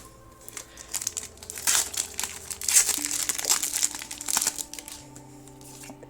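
Foil wrapper of a Pokémon trading card booster pack crinkling and tearing as it is opened, in a dense run of crackles from about one second in to about four and a half seconds in, over soft background music.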